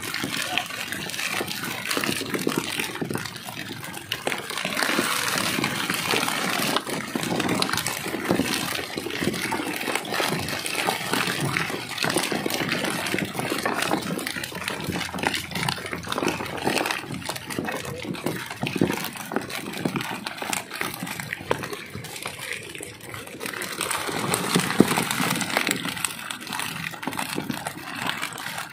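Irregular splashing and sloshing of water.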